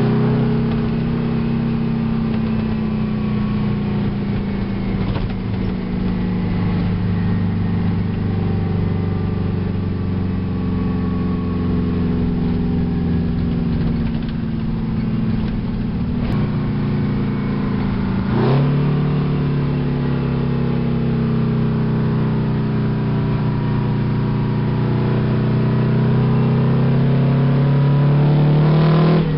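Two-stroke Detroit Diesel engine of a 1967 Kenworth truck pulling on the road, heard from inside the cab. Its pitch sinks slowly under load, then about two-thirds through it drops and jumps back up with a gear change. It climbs steadily until another shift at the very end.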